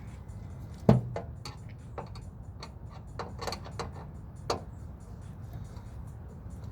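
Clicks and knocks from a microwave's casing and parts being handled during disassembly. There is a sharp knock about a second in, another a few seconds later, and lighter ticks between them.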